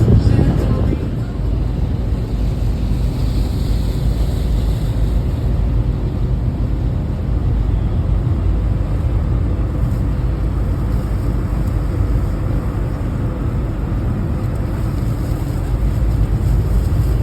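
Motorboat running at a steady speed: a loud, even, low rumble throughout.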